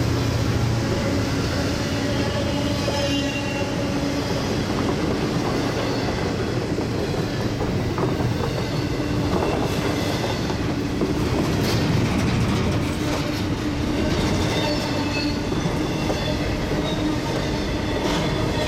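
Double-stack intermodal freight cars rolling past close by: a steady rumble of steel wheels on rail with occasional sharp clicks, and a faint high wheel squeal at times.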